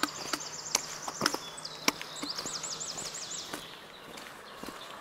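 A walker's footsteps, sharp clicks roughly twice a second, over a songbird singing two quick runs of repeated high arching notes in the first part.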